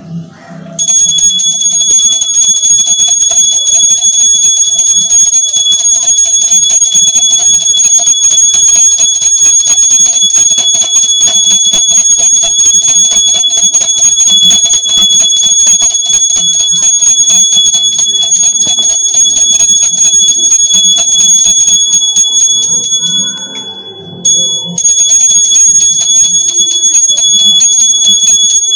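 A small brass puja hand bell (ghanti) rung rapidly and continuously as part of Hindu worship, giving a steady high ringing. It stops briefly a little after twenty seconds in, then starts again.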